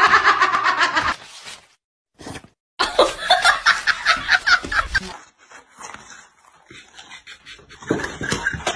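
People laughing in quick pulses, in two stretches with a brief silent gap between. The sound is fainter in the later part.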